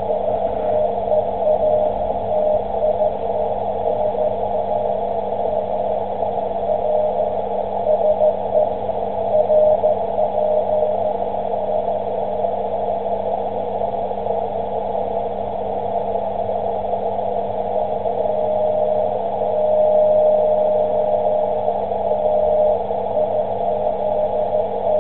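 Weak Morse code tone from the IZ0CWW/B amateur radio beacon on 10 metres, received on an Icom IC-735 transceiver. The tone fades in and out under steady band hiss narrowed by a CW filter, over a low steady hum; it is strongest near the end.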